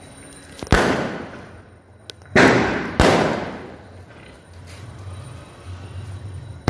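Aerial fireworks bursting: three sharp bangs in the first three seconds, two of them close together, each fading away in a long echo, and another bang at the very end.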